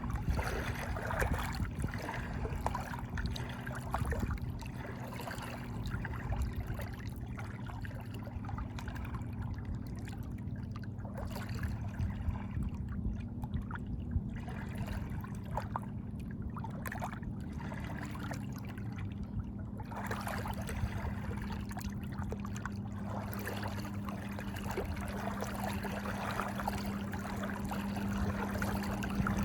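Water trickling and splashing in small irregular bursts over a steady low hum.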